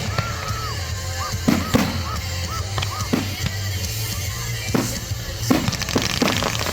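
Fireworks going off in several sharp bangs, scattered through the stretch, over music with a steady deep bass.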